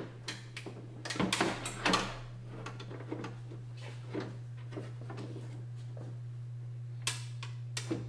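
Knocks and rattles of a door latch assembly and its lock rod being worked into the steel shell of a Ford F-150 rear door, with a cluster of knocks in the first two seconds and another near the end. A steady low hum runs underneath.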